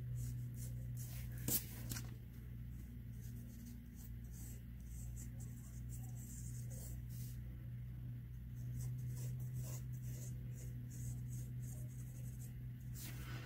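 Pencil sketching on paper: a run of short, scratchy strokes, with one sharper tap about one and a half seconds in, over a steady low hum.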